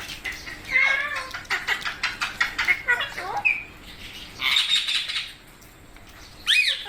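Pet rose-ringed parakeets calling and chattering: a run of quick chirps and rapid clicking in the first half, a harsh squawk about two-thirds of the way in, and a falling screech near the end.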